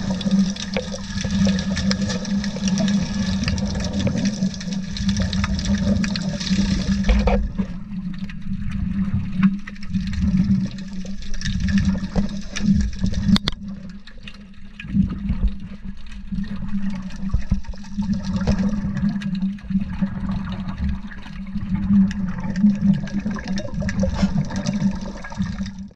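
Underwater recording of scuba divers breathing through their regulators: exhaled air bubbling and rushing in surges over a steady low hum. A bright hiss in the mix cuts off suddenly about seven seconds in.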